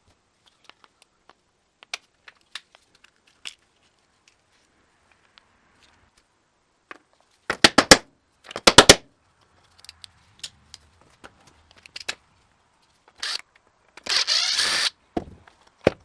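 Tools and metal parts of a diaphragm pump clicking and knocking as it is taken apart. About halfway through come two loud, quick rattles of rapid impacts, and near the end a harsh burst about a second long.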